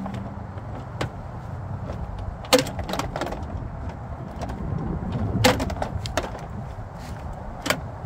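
Plastic inner door trim panel of a 2015 Toyota Camry being fitted back onto the rear door: several sharp plastic clicks and knocks, the loudest about two and a half, five and a half and nearly eight seconds in, over a low steady rumble.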